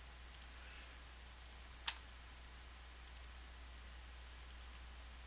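Faint computer mouse clicks: a few scattered single and paired clicks, the loudest just before two seconds in, over a low steady hum.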